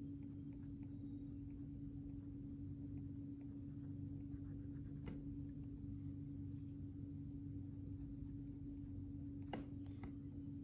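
Pencil scratching on paper in quick sketching and shading strokes, faint, over a steady low hum. There are a couple of sharper clicks, about halfway through and again near the end.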